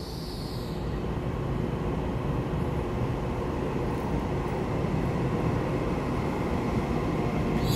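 TRA EMU3000 electric multiple unit arriving along an underground station platform: a steady rumble of wheels and traction motors that slowly grows louder as the train draws in.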